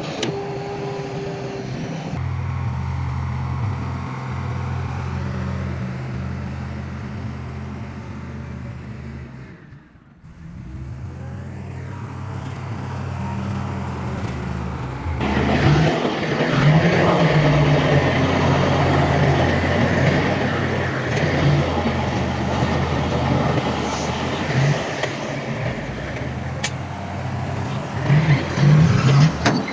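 Heavy diesel earthmoving machinery running with a steady low engine drone. It dips briefly about a third of the way in, then turns louder and rougher from about halfway, with a few heavier surges near the end.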